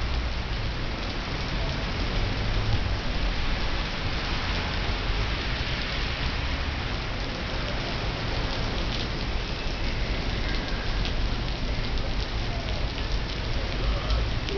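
Torrential rain pounding the pavement and street, a loud, steady, dense hiss.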